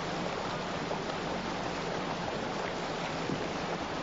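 Steady rushing noise of open water and wind, with a faint low hum from the camera motorboat's engine underneath.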